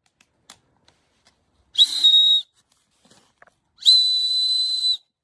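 A high-pitched whistle blown twice: a short blast about two seconds in, then a longer, steady blast of about a second near the end.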